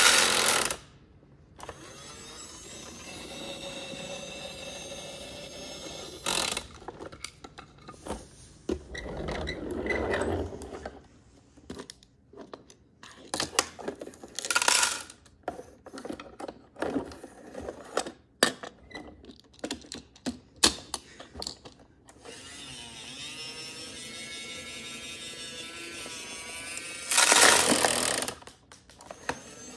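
Plastic toy garbage truck's electronic sound effects and working parts, with a run of sharp plastic clicks and knocks in the middle as toy wheelie bins are handled and hooked onto its rear lifter. Several short, loud bursts of noise stand out, the longest near the end.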